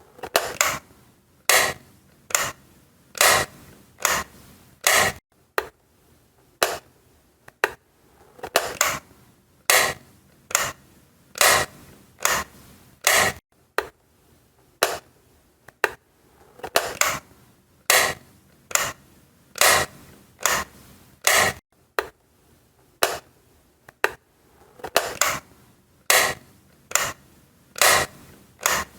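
A light switch being flipped on and off over and over, sharp clicks about one or two a second.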